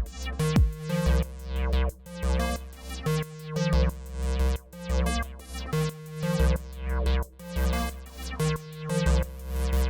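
Acid techno played on a Roland TR-8 drum machine and a Roland JU-06A synthesizer: a repeating pulsing bass line and synth notes over a drum-machine beat, with a falling pitch sweep about half a second in.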